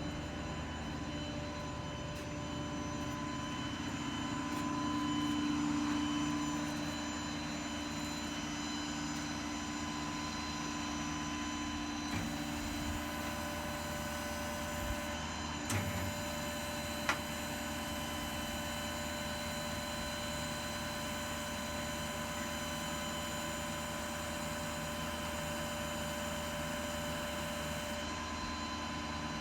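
A steady hum made of several even tones. It grows louder for a few seconds near the start, and a few faint clicks come around the middle.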